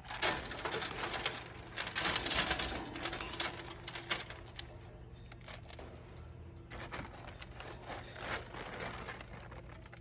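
Bird-cage bedding rustling and crinkling as it is handled and smoothed out, with many small irregular clicks; busiest in the first half, then quieter.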